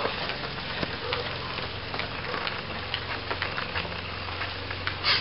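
Footsteps of runners climbing a dirt trail, heard as scattered light ticks over a steady crackly hiss, with a brief louder rasp near the end.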